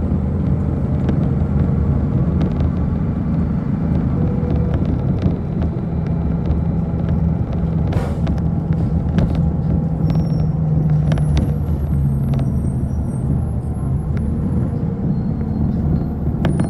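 City bus in motion heard from inside the passenger cabin: a steady low drive rumble with small rattles and clicks, and one sharper click about eight seconds in.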